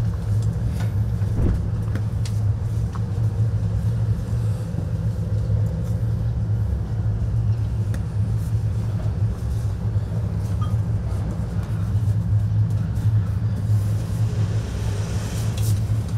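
A steady low hum and rumble holds at an even level throughout, with a few faint light ticks above it.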